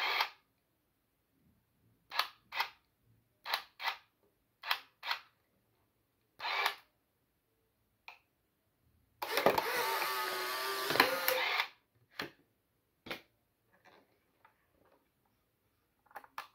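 Polaroid SLR680 instant camera working: several short mechanical clicks, mostly in pairs, then its motor whirring for about two and a half seconds as it drives a print out of the film slot, followed by a couple of fainter clicks.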